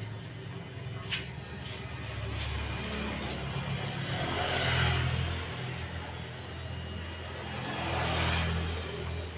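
Cordless hair clipper buzzing steadily as it cuts a fade up the side of the head. Passing road traffic swells and fades over it about halfway through and again near the end.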